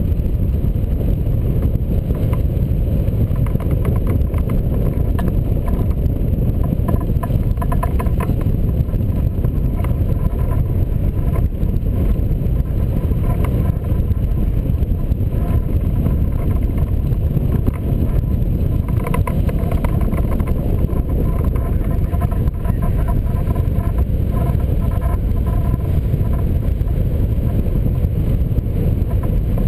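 Steady, loud wind rushing over the microphone of a camera mounted on a hang glider in flight, a deep, unbroken buffeting from the airflow.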